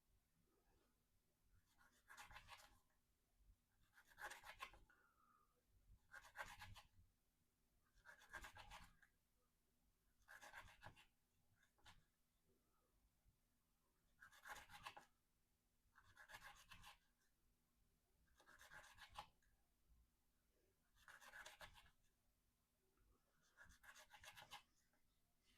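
A VG-10 steel Spyderco Endura 4 knife blade slicing through rope in repeated single cuts, about one every two seconds: around eleven short scratchy rasps of the edge dragging through the fibres.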